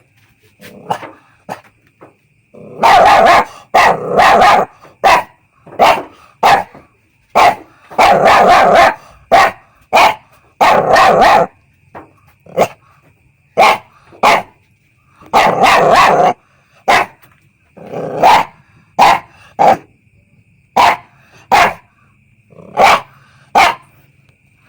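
Puppy barking over and over: short single barks mixed with quick runs of several barks in a row, with brief pauses between bouts.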